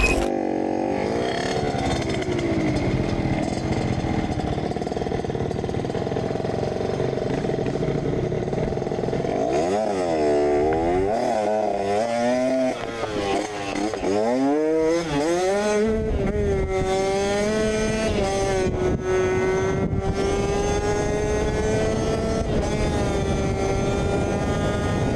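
Motorcycle engine running under way, its pitch steady at first. In the middle the revs drop and climb again several times as the throttle is worked, then it settles into a steady run.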